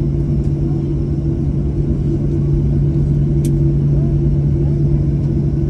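Steady cabin noise inside a Boeing 737 taxiing after landing: a low rumble under a constant two-note hum. A single short click sounds about three and a half seconds in.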